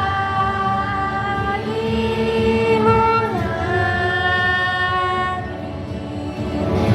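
Children's choir singing long held notes, the pitch stepping from one sustained note to the next.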